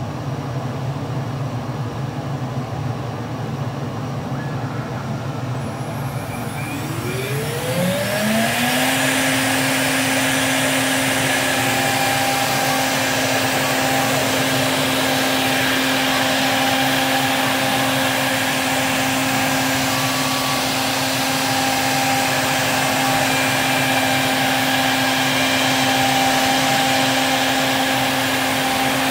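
CNC router's spindle spinning up about seven seconds in, its whine rising in pitch and then holding a steady high whine as the machine runs, over a steady mechanical hum.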